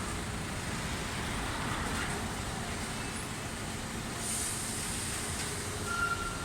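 Steady low rumble of vehicle noise in an open yard, with a short high beep near the end.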